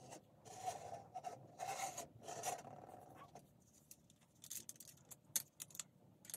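Lego Duplo plastic pieces handled by hand: rubbing and scraping for about three seconds, then several light clicks.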